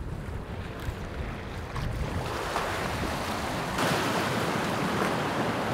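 Waves washing over a rocky shore, with wind rumbling on the microphone. The wash swells about two seconds in and grows louder near four seconds.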